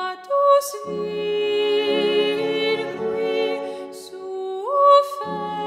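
Background music of long held notes, with one note sliding upward near the end.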